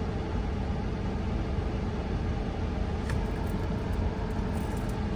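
Steady hum of a 2020 Kia Optima idling with its air-conditioning fan blowing, heard inside the cabin.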